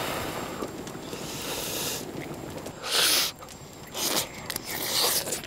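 Spicy fish cakes simmering in broth in a pan on a portable gas stove, a steady hiss, then several short scraping, rustling sounds about a second apart as metal tongs lift the fish cakes out.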